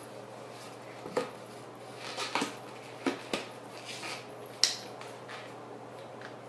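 Latex twisting balloon squeaking and rubbing in a handful of short, irregular bursts as it is handled, the sharpest squeak a little past halfway, over a low steady hum.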